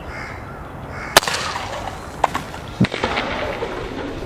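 CO2 BB air pistol test-firing: a sharp crack about a second in, followed by several fainter clicks and knocks. Birds call in the background.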